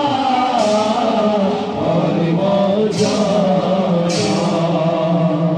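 Amplified Bhaona devotional song: a voice singing a winding melody over a held low drone, with three sharp bright hits.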